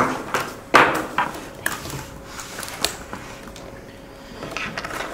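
A few sharp knocks and clatters, like objects being handled or set down, over quiet room noise; the loudest comes about three-quarters of a second in, with smaller ones scattered after.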